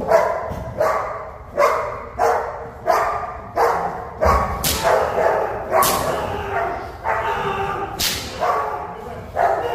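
German Shepherd protection dog barking steadily at an agitating decoy while held on a leash, about one and a half barks a second, with a few sharp cracks among the barks.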